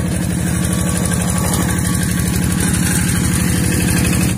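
Two-wheel rice-paddy hand tractor's single-cylinder diesel engine running steadily with a rapid, even chug.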